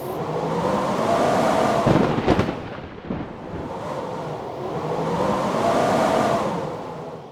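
Blizzard wind blowing in two strong gusts, its howl rising and falling in pitch, with a few low buffeting thumps about two seconds in.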